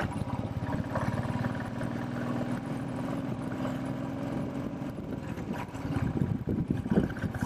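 Motorcycle engine running steadily under way, its firing pulses close up, growing rougher and louder near the end.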